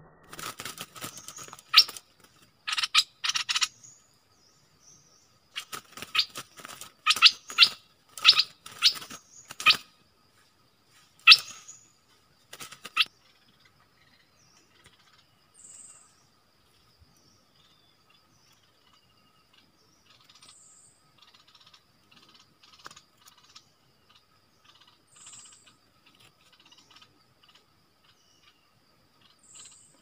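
Birds chirping: a run of loud, sharp chirps over the first thirteen seconds or so, then only faint, scattered high chirps.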